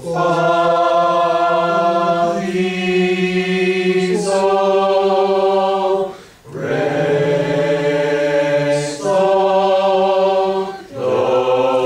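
A small class of voices singing solfège syllables together as a slow series of long held notes, each about two seconds, moving step by step through the scale. There is a short break for breath about six seconds in.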